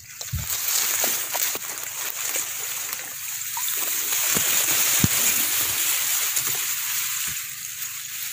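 Rice stalks rustling steadily against the phone as it pushes through a flooded rice paddy. Water sloshes lightly, and there are a few light clicks.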